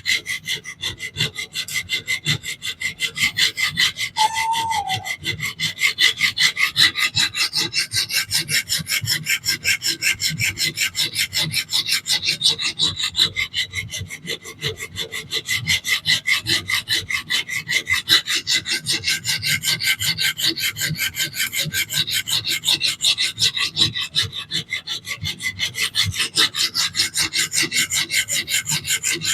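Coarse diamond plate on a fixed-angle sharpener stroked rapidly back and forth along a DC53 steel knife edge, a steady grinding rasp at about three strokes a second, reprofiling the bevel to raise a burr. A brief squeak about four seconds in.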